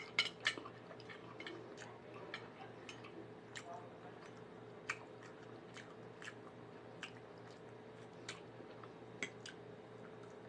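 A person eating with a fork: quiet chewing and mouth sounds with sharp small clicks, a few together at the start and then about one a second, over a steady low hum.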